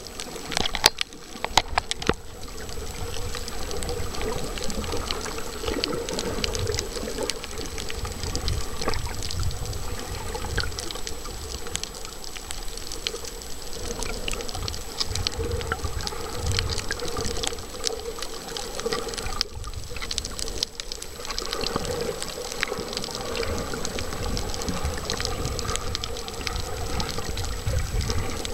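Underwater sound picked up by a camera held below the surface on a coral reef: a muffled rumble and swish of moving water with a steady hum and a constant crackle of tiny clicks.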